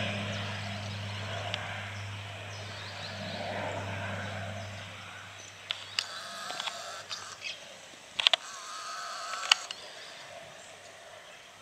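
Beechcraft King Air twin turboprop climbing away after takeoff, its steady low propeller drone fading out over the first five seconds. After that come a few short bird chirps and clicks.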